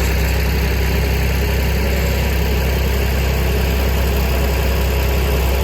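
An engine idling steadily, with a strong, even low hum and no change in speed.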